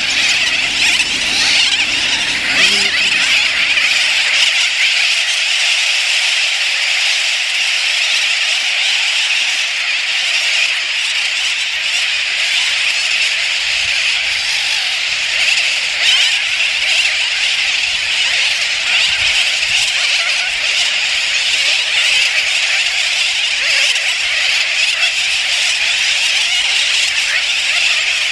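A large seabird colony calling all at once: a dense, unbroken din of many high-pitched overlapping calls.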